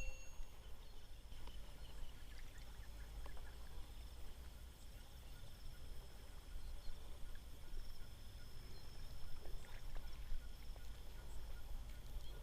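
Faint outdoor ambience: a steady high-pitched drone over a low rumble, with a few faint ticks.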